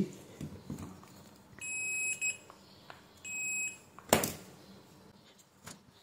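Digital multimeter's continuity beeper sounding twice, two steady high beeps about a second and a half apart, as the test probes touch both ends of a wire: the wire is continuous end to end. A sharp click follows about half a second after the second beep.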